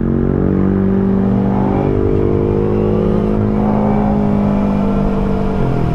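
Kawasaki ZX-4RR's 399 cc inline-four engine, on its stock exhaust, running under way with the bike ridden. The engine note climbs slowly, dips about halfway, climbs again and drops near the end, over a low rumble.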